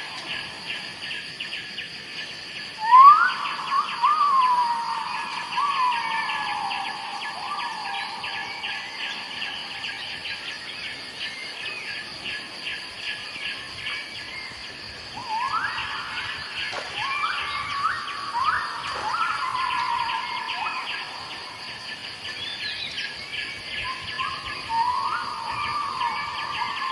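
Canada geese honking: calls that each jump sharply up in pitch and then slide down. They come in bunches about 3 seconds in, again from about 15 seconds, and near the end, over a steady high, fast-pulsing buzz.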